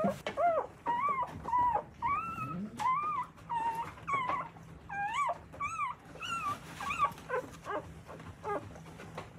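Newborn Akita puppies squeaking and whimpering: a quick run of short, high squeals that rise and fall, several a second, becoming shorter and choppier in the second half.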